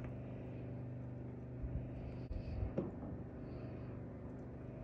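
A steady low hum runs throughout, with a few faint soft bumps and a click about two to three seconds in.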